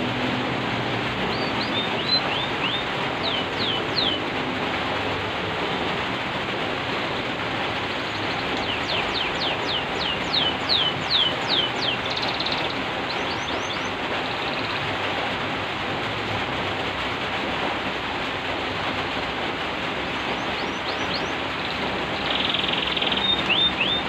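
Steady hiss of falling rain, with a canary singing in several short runs of quick, falling whistled notes.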